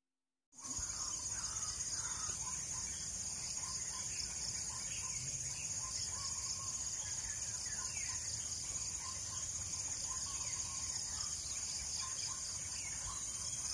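Rural outdoor ambience that begins abruptly about half a second in: birds calling in short, repeated chirps over a steady, high-pitched insect drone, with a low rumble underneath.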